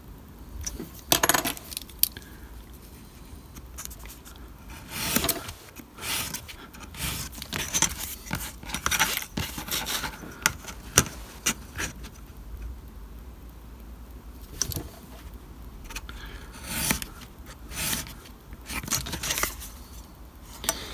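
A craft knife cutting stiff card along a steel ruler on a cutting mat: a series of short scrapes and clicks, with the metal ruler clinking as it is moved and set down.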